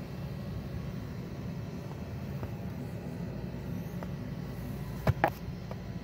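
Steady low mechanical hum, with two sharp clicks close together about five seconds in.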